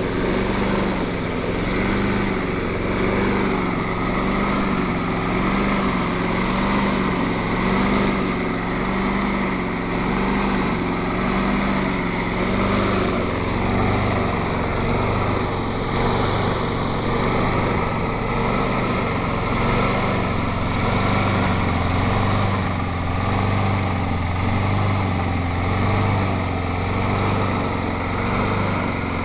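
Briggs & Stratton engine on a walk-behind lawn mower, running and surging: its speed rises and falls over and over, a governor hunting.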